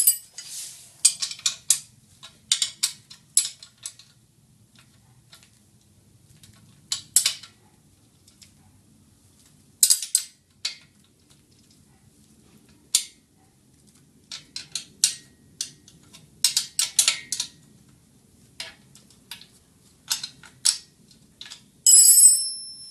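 Spanner working the nuts on the bolt assemblies of a steel stand's tilt adjuster: irregular metallic clicks and clinks in small clusters, with a louder, briefly ringing clink near the end.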